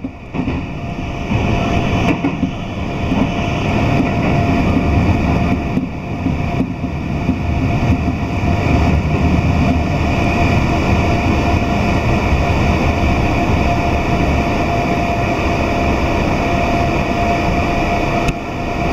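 Keio Line commuter train heard from inside the carriage as it runs into a station and slows to a stop: a steady rumble of wheels and running gear, with a thin steady high tone over it.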